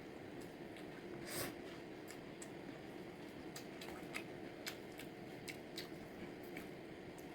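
Light, sharp clicks and taps in an irregular scatter over a steady low hum, one louder than the rest about a second and a half in, typical of home cooking.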